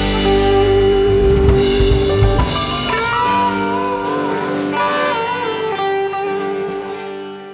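Live band of electric guitars, bass, drums and keyboard playing the close of a rock song. About three seconds in, the drums and bass drop away, leaving held chords and a wavering lead line that fade out near the end.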